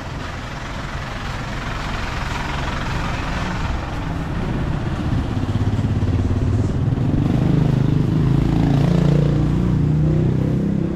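Street traffic: a vehicle rushes by in the first four seconds, then a motor vehicle engine draws close and is loudest about nine seconds in, its pitch dropping slightly as it passes.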